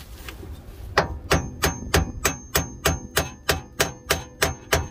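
Hammer blows on a metal tool held against a stuck rear suspension bolt, driving it out. The strikes are evenly spaced, about three a second, start about a second in, and each rings briefly like metal.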